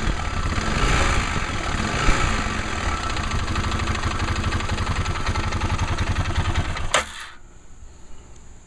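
Arctic Cat 650 H1 single-cylinder four-stroke engine idling with its clutch parts and belt removed, running with a fast rattle/knock that is still there without the clutch. About seven seconds in a sharp click is heard and the engine cuts off, leaving only a faint steady hum.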